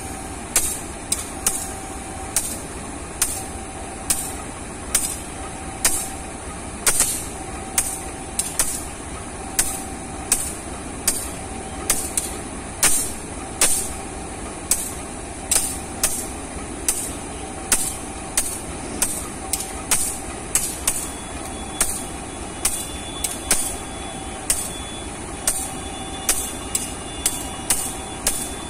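A CC206 diesel-electric locomotive heading a passenger train, engine running as it pulls slowly away. Through it run sharp, regular clicks about one and a half times a second and a short beep repeating at a steady pace.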